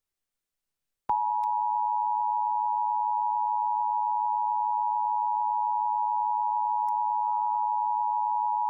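Emergency Alert System attention signal: the steady two-tone alert (853 and 960 Hz together) comes on sharply about a second in and holds at an even level, marking the start of an EAS Required Monthly Test alert.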